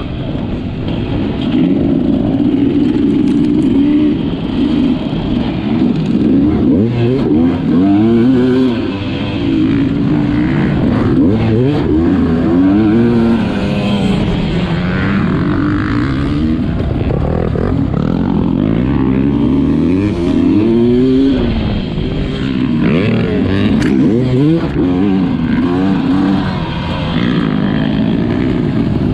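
Sherco 300 enduro motorcycle engine being ridden hard, its pitch climbing under throttle and dropping back over and over as the rider accelerates, shifts and backs off, with occasional sharp knocks over rough ground.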